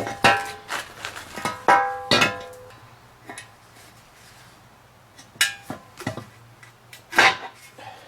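Metal tools and parts clanking against each other, a string of sharp knocks that ring briefly, most of them in the first two seconds, then a few more near the middle and end.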